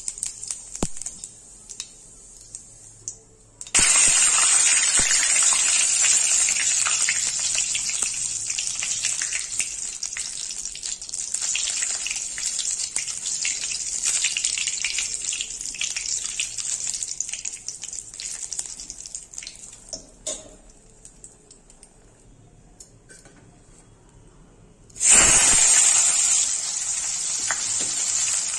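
Hot oil in a karahi sizzling as whole spices (dried red chillies, bay leaves, cumin) fry in it. A sudden loud sizzle a few seconds in slowly dies down. Near the end a second sudden loud burst of sizzling comes as sliced onions go into the oil.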